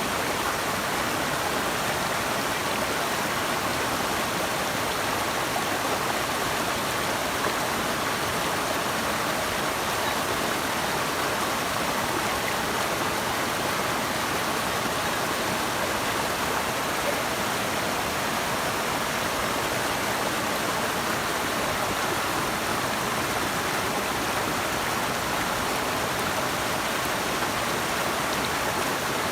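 Running water rushing steadily, an even unbroken wash of sound with no change in level.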